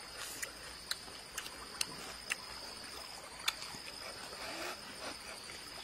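Insects, crickets or similar, trilling steadily in a thin high pitch, with a few sharp, irregular clicks scattered over it.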